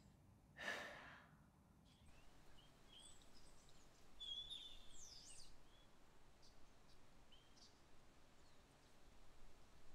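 A person sighs once about a second in. A faint outdoor hush follows, with a few high bird chirps from about three to five and a half seconds in.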